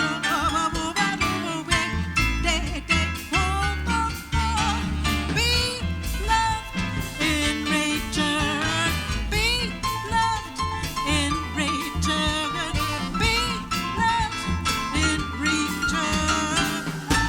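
Live jazz band playing with a swing feel: a lead line that wavers in pitch over walking bass and drums.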